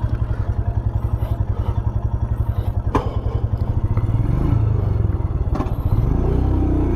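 Royal Enfield Himalayan's single-cylinder engine idling with a fast, even thumping beat, and a sharp click about three seconds in.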